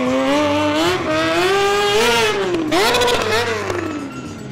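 A Kawasaki sport bike's engine is revved up and down under throttle during a motorcycle stunt routine. Its pitch climbs for about two seconds, drops briefly, rises again, then falls away near the end.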